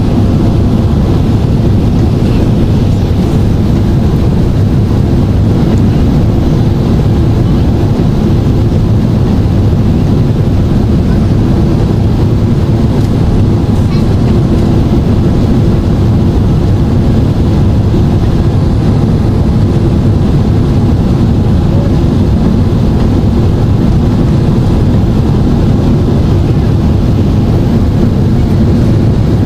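Steady, loud low rumble inside the cabin of a Boeing 767-400ER on final approach: engine and airflow noise with the flaps extended for landing.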